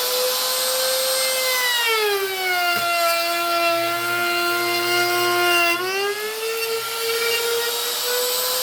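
Makita wood router flattening a wooden slab, its high motor whine sagging in pitch for about four seconds as the bit bites into the wood under load, then climbing back to full speed, over the rasp of the bit chewing the surface.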